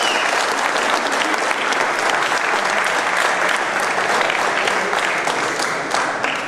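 Audience applauding, a dense run of many hands clapping that eases off near the end.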